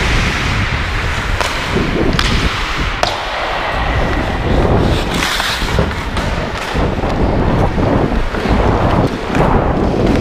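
Ice hockey skates scraping and carving the ice, with a few sharp clacks of sticks on the puck in the first few seconds, over a low rumble of wind and movement on a skater-worn action camera's microphone.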